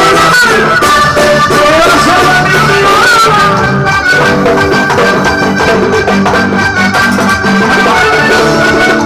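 Live Latin band music in vallenato style, loud and continuous: an accordion melody over a plucked guitar and band accompaniment.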